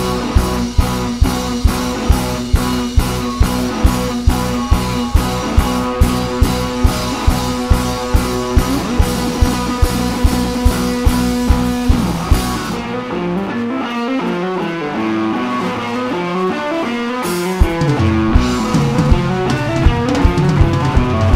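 Surf-rock band playing live: electric guitars over a steady drum beat. About twelve seconds in the drums drop out, leaving the guitars alone, and the drums come back in near the end.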